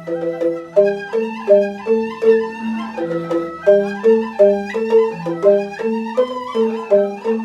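Rindik, Balinese bamboo xylophones, playing a quick repeating interlocking pattern of struck, ringing notes, with a held flute-like melody line above.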